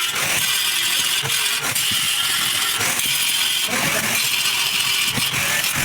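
Electric arc welding: a steady, dense hiss with a fine crackle, its brighter high edge coming and going as the arc is struck and held.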